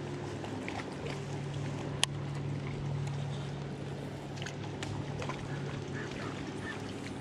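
A bass boat's electric trolling motor humming steadily, holding the boat along the bank. There is a single sharp click about two seconds in, and a few faint ticks.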